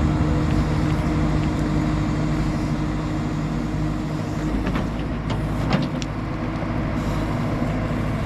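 Backhoe loader's diesel engine running steadily, with a few sharp knocks a little past the middle.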